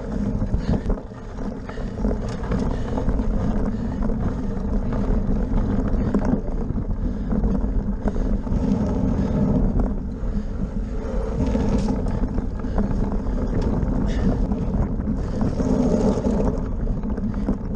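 Wind buffeting the microphone of a handlebar-mounted camera on a cyclocross bike, over a steady rumble and rattle of the bike riding over rough ground.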